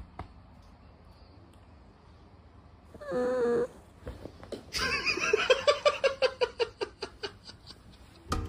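A cat vocalizing: one short meow about three seconds in, then a fast run of short pitched calls lasting about three seconds.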